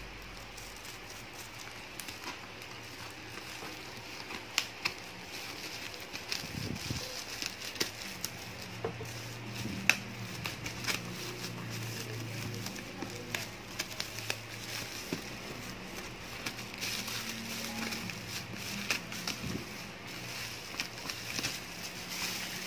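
Black plastic parcel wrapping crinkling and tearing as it is cut open with scissors, with many scattered sharp clicks and snips.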